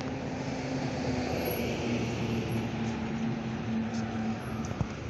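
Street traffic: a motor vehicle's steady engine hum with tyre noise that swells about a second in and then eases as it goes by.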